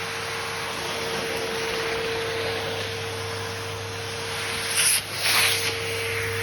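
Numatic NRV240-11 tub vacuum cleaner running steadily, its motor giving a constant whine over the hiss of suction. About five seconds in, the rush of air suddenly gets louder twice in quick succession, then a short click near the end.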